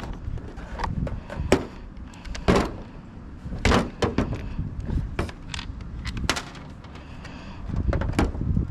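Sharp hard clacks and knocks, about half a dozen spread irregularly, from a car side-mirror assembly and its screws being handled and fitted.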